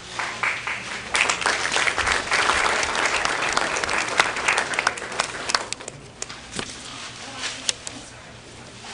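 Audience applauding: the clapping builds up quickly, stays full for a few seconds, then thins out to a few scattered claps about six seconds in.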